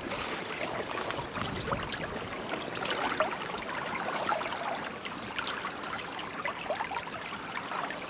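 Shallow stream running over stones, a steady babbling trickle of small ripples and bubbles.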